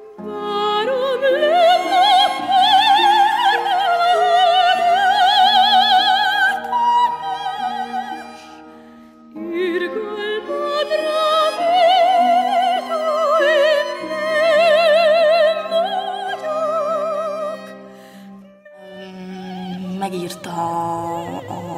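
Operatic singing: a high voice with wide vibrato over sustained accompaniment, in two long phrases with a short break between them. Near the end it gives way to lower, quieter music.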